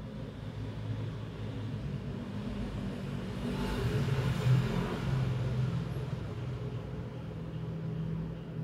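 Low engine rumble of passing traffic, with one vehicle swelling louder about halfway through and then fading.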